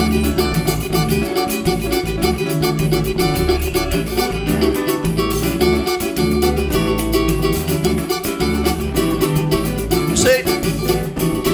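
Live samba band playing a song's instrumental introduction: acoustic guitars strumming over hand drums, frame drum and drum kit with a steady beat. A voice comes in near the end.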